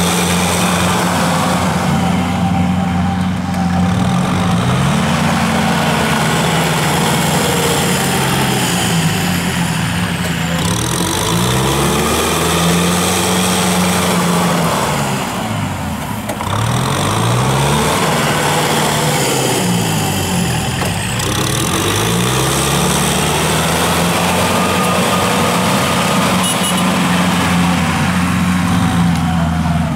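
Kubota tractor's diesel engine running steadily as it drives a rear-mounted rotary tiller through a field. The engine note wavers and shifts for a while in the middle.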